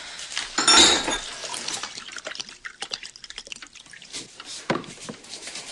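Wine being poured into a glass, with a louder splash about a second in, then trickling and scattered small clicks.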